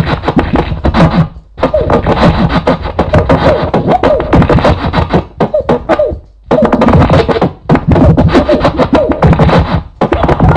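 Vinyl record being scratched on a turntable: rapid back-and-forth scratches of a sample over a beat. The sound cuts out briefly twice.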